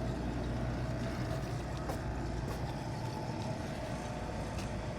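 Refrigeration vacuum pump running steadily, a continuous low mechanical hum, pulling the system down while the vacuum is read on the manifold gauges.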